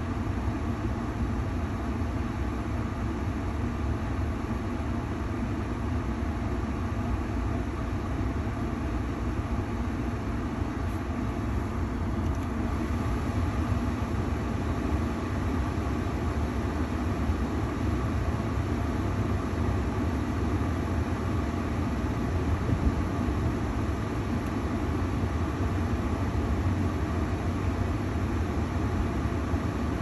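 Ford Maverick's HVAC blower running on full heat, a steady rush of air from the front dash vents with a low hum beneath it.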